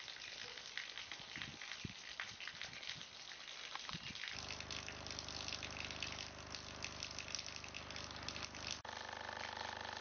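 Water gushing and splashing with many small crackles. About four seconds in, a steady mechanical hum with several pitches joins it, and near the end the sound cuts abruptly to a different steady hum.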